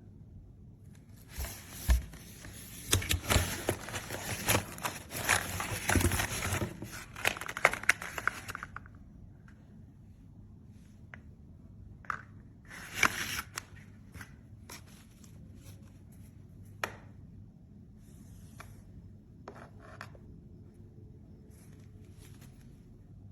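Rustling and scraping handling noise with many sharp clicks and knocks, dense for about seven seconds, then scattered single clicks and short rustles.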